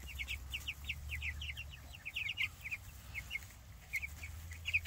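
Flock of Cornish Cross meat chicks, about three weeks old, peeping: many short, slightly falling high chirps a second, thinning out about three seconds in and picking up again near the end.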